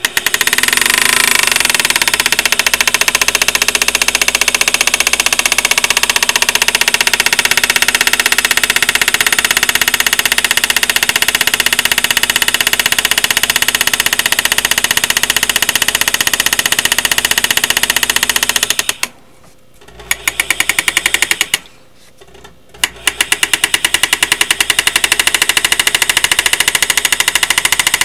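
Foot-pedal-controlled reciprocating hand engraver, its graver hammering rapidly as it cuts outline lines into a steel punch blank. It stops twice for a moment about two-thirds of the way through, then carries on.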